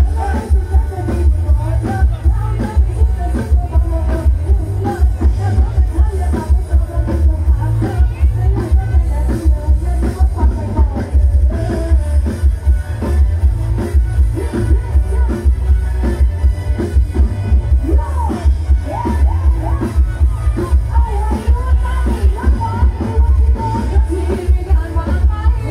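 Live band music played loud through a sound truck's PA system: a heavy, steady bass beat with keyboard and guitar, and singing voices over it.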